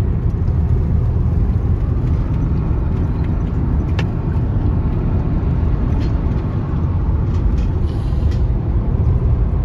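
Steady road and engine noise of a moving car heard from inside the cabin, with a few faint ticks.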